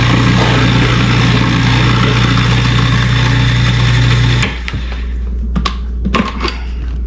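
Food processor motor running steadily while blending garlic and salt into a creamy garlic paste for toum. It cuts off about four and a half seconds in, followed by a few light clicks and knocks.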